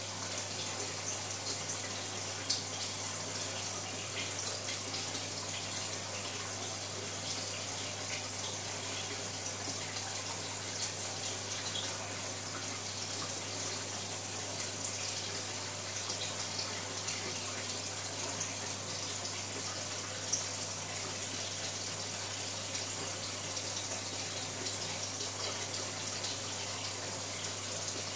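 Water running and splashing steadily in a fish tank's circulation, with small scattered ticks and a constant low hum underneath.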